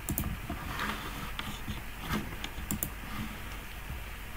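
Scattered light clicks and taps at an irregular pace over a faint background hiss.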